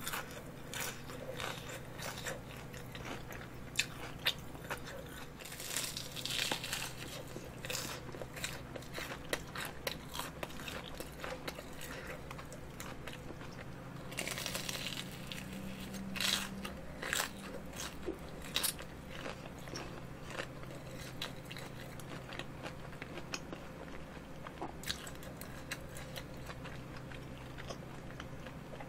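Close-miked biting and chewing of a crispy breaded hot dog (Gourmet brand): crackly crunches of the fried coating, with louder crunchy bites about six seconds in and again around fourteen to seventeen seconds.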